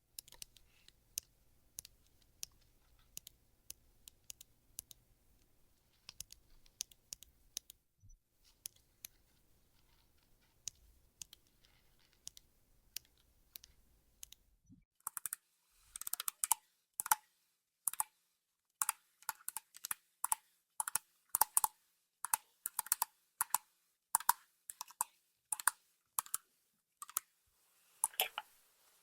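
A series of short, sharp clicks: faint and scattered for about the first half, then louder and more regular, roughly one or two a second, to the end.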